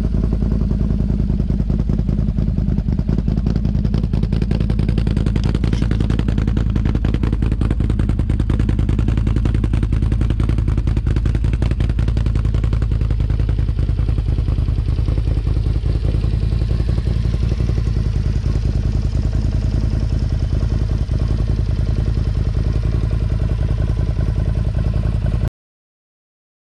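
Can-Am Outlander XMR 1000's Rotax V-twin engine running steadily through a Yoshimura aftermarket exhaust, a loud, deep, pulsing exhaust note. The sound cuts off abruptly near the end.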